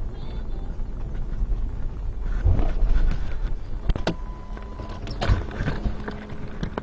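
Patrol car engine and road rumble heard inside the cruiser as it pulls up, with scattered clicks and a brief steady tone about four seconds in.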